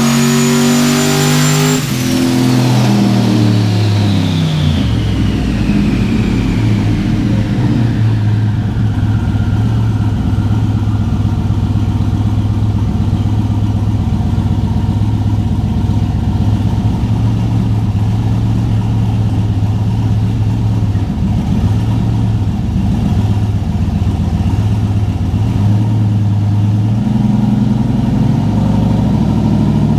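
Turbocharged 6.0-litre V8 at high revs under full throttle with a high turbo whine, then backing off about two seconds in. The revs fall and the billet S480 turbo's whine winds down over several seconds, leaving a steady low drone.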